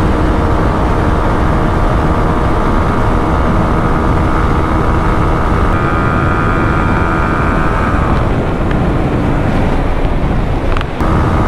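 A motorcycle running flat out at about 125 km/h, its steady high-revving engine tone under loud wind roar on the on-bike camera's microphone. The engine note shifts about six seconds in, and the sound dips briefly near the end.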